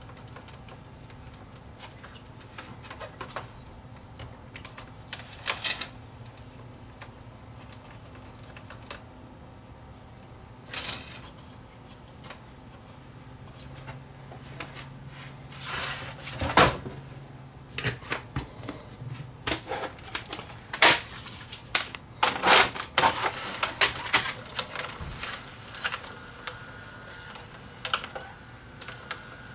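Clicks and plastic-and-metal clatter from hands working inside an opened VHS VCR mechanism. Sparse at first, it thickens in the second half into a run of sharp clicks and knocks as a VHS cassette is handled and set into the machine. A faint steady whine comes in near the end.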